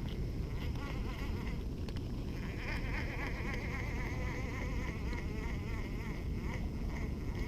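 Insects buzzing steadily, growing stronger about two seconds in, over a low rumbling background noise.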